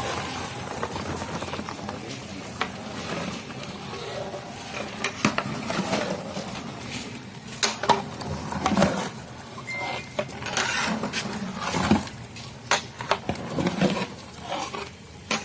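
A ladle stirring a large pot of chicken curry, with irregular knocks, clinks and scrapes of the ladle against the pot.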